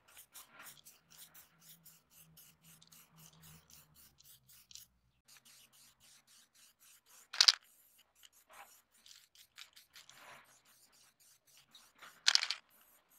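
Aerosol spray-paint can spraying paint onto a shovel blade in short hisses, the two loudest about halfway through and near the end. A faint, quick ticking, about five a second, runs through the first few seconds.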